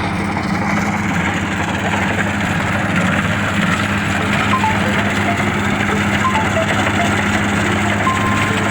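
Kubota DC-35 combine harvester running steadily while harvesting rice: a constant, even engine drone.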